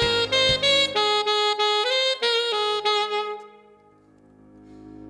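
Alto saxophone playing a song melody in a run of short and held notes over a backing track. The music dies away to a brief lull about three and a half seconds in.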